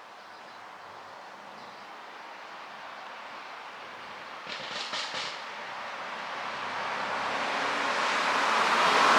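Mercedes-Benz S560's twin-turbo V8 and exhaust growing steadily louder as the car approaches, with a brief cluster of exhaust pops and crackles about halfway through from its ECU pop-and-crackle tune.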